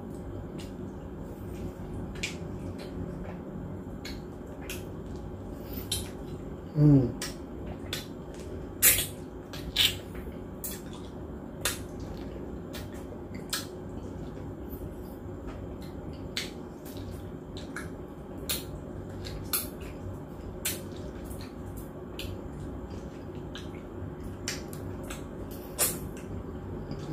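Close-up wet mouth sounds of ripe mango being eaten off the peel: scattered smacks and sucking clicks, with a short rising 'mm' from the eater about seven seconds in, over a steady low background hum.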